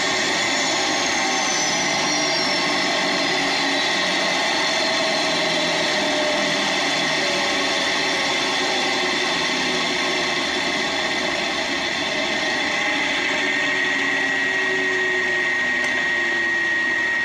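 Electric RC helicopter (Align T-Rex 600 mechanics in an MH-6 scale body) running on the ground, its motor and gears whining and its main and tail rotors spinning. The whine drops in pitch over the first several seconds and then runs steady, with a high tone coming in near the end.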